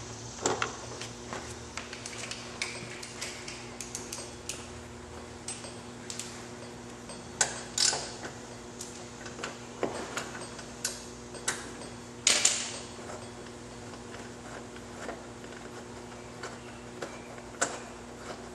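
Scattered metallic clicks and clinks of a 6 mm Allen wrench working the seat bolts loose and the bolts being taken out, with one louder clatter about twelve seconds in, over a steady hum.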